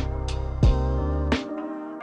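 Background music: a sustained synth chord over a strong bass with drum hits about every three quarters of a second. The bass and drums stop about one and a half seconds in, leaving the chord fading out.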